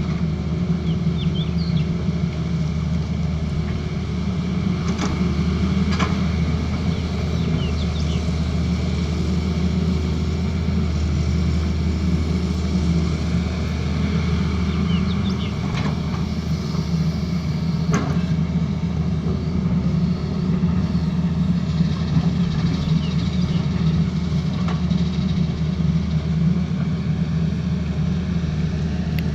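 Tata Hitachi ZAXIS excavator's diesel engine running steadily under work, with a few sharp knocks along the way.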